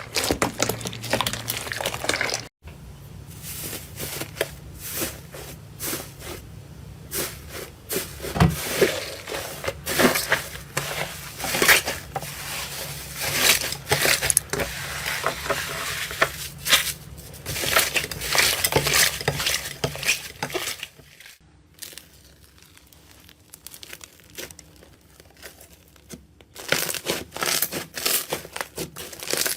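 Slime being squeezed, pressed and poked by hand, giving dense crackling and popping clicks. The sound changes abruptly a few times as clips switch, with a quieter stretch of softer crackles about two-thirds of the way through.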